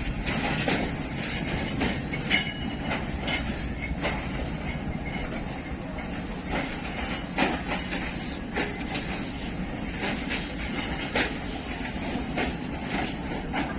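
Passenger train rolling along the track: a steady rumble of coaches with the wheels clicking over rail joints at irregular intervals.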